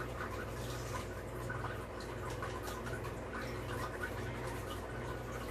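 Faint clicks and light taps of hand work on a bicycle's front derailleur as it is fitted, over a steady low hum.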